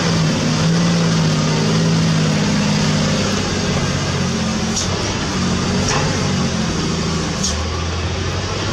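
Heavy diesel engine running steadily under some load, its pitch shifting a little, with a few light clicks over the top.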